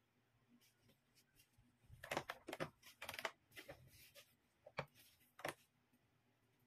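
Filled plastic bottles being picked up and packed into a fabric bag: a run of light plastic crinkles, rustles and small knocks, then two sharp clicks nearer the end.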